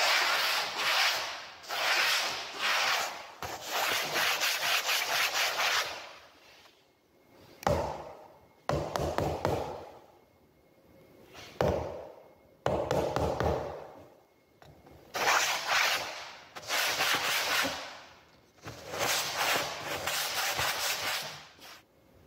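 A flat hand tool scraping through wet paint across a flat painting surface: about a dozen scraping strokes, each a second or two long, with short pauses between them.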